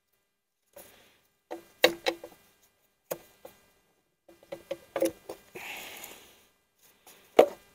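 Irregular clacks and knocks of a Mercedes engine's valve cover being set and shuffled into place on the cylinder head, its new gasket being seated. There is a short scraping rustle about two-thirds of the way through and a sharp knock near the end.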